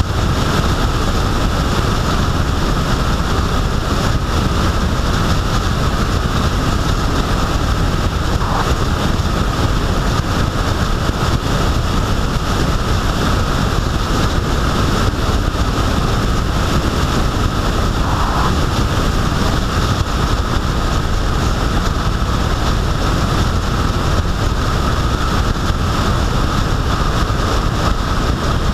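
Steady wind rush over the microphone with road and engine noise from a vehicle cruising at constant speed.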